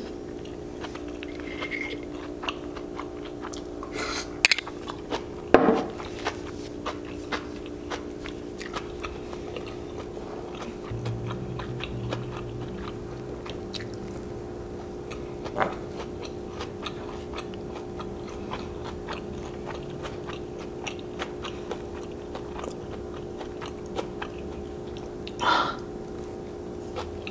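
Close-up chewing and biting of mouthfuls of kimchi fried rice: a run of small wet mouth clicks with a few louder clicks, over a steady faint hum.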